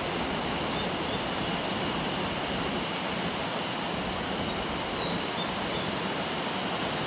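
Waterfall pouring: a steady, even rush of falling water, with a faint steady high tone and a few faint chirps above it.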